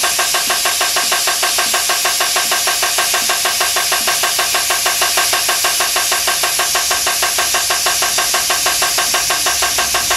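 Compressed air hissing into a freshly mounted tire through its valve stem with the valve core removed, inflating it, with a rapid, even pulsing in the airflow.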